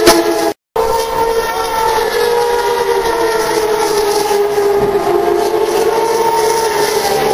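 Turismo Carretera race car engines running hard as the cars pass on the straight: a loud, steady engine note whose pitch slowly falls. The sound cuts out completely for a moment just after the start.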